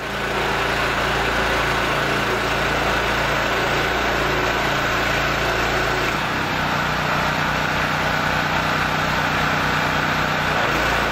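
Small gasoline engine driving a cold-water pressure washer pump, running steadily. Its low note changes to a fast, even pulsing about six seconds in and settles back near the end, as the spray gun is fired and released during adjustment of a new unloader valve.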